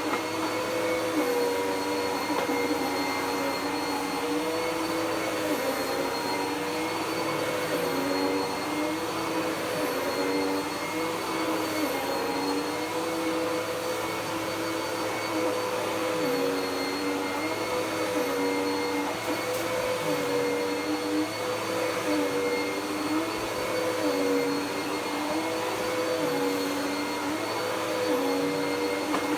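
Dirt Devil PowerMax Pet upright vacuum cleaner (model UD70167) running on carpet, a steady motor whine over airflow noise. Its lower tone dips and recovers about every two seconds as the vacuum works the carpet.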